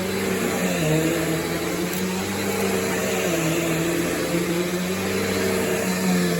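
Bissell PowerForce Helix Turbo bagless upright vacuum cleaner running steadily, its motor hum over a constant rush of air, the pitch wavering slightly.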